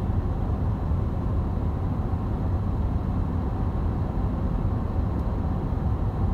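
Steady low rumble of a car driving along a road: tyre and engine noise heard from inside the moving car.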